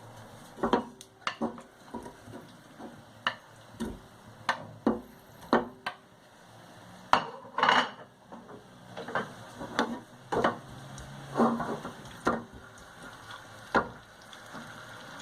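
A cooking utensil knocking and clinking against a frying pan in irregular strokes, about one or two a second, as food is stirred and moved around in the pan.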